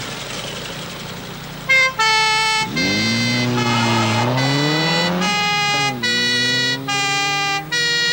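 Police car two-tone siren horns sounding a run of held high-low notes, starting a little under two seconds in, over road noise. Underneath, an engine revs up twice, rising in pitch.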